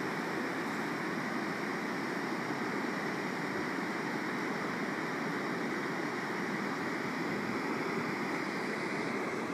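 Steady rushing of water pouring over a dam spillway, an even noise with no breaks.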